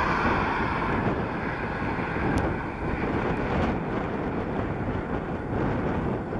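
Distant steam locomotive, a BR Standard Class 4 2-6-4T tank engine, working a passenger train, heard as a steady rumble under wind buffeting the microphone.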